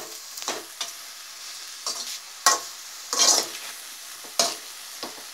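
Slotted metal spatula stirring and scraping chopped okra, tomato and onion around a metal kadai, in about half a dozen irregular strokes, over a steady sizzle of frying. The okra curry is cooked through.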